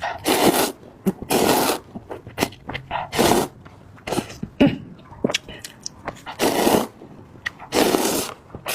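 Slurping hot instant noodles: a series of short, noisy sucking slurps, about six, roughly every second or so.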